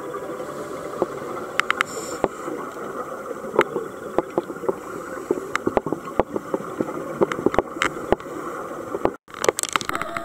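Underwater sound picked up by a dive camera: a steady muffled rush with many scattered sharp clicks, broken by a brief dropout about nine seconds in.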